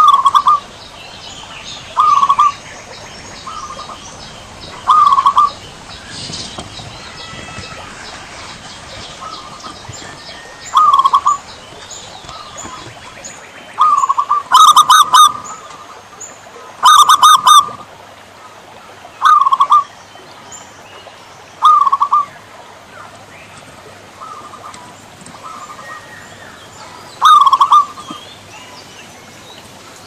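Zebra dove (perkutut) singing: short cooing phrases about half a second long, repeated every few seconds, with a longer gap mid-way. Faint chirping of small birds runs underneath.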